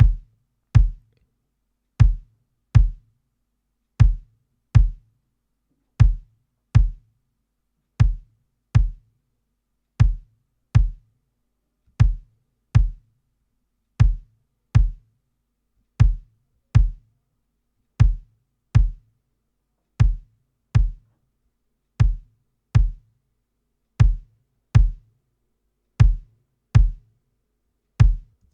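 Recorded acoustic kick drum samples playing alone in a looped pattern, short deep thuds in pairs, two hits every two seconds. The two kicks are grouped and run through a glue compressor to tighten them.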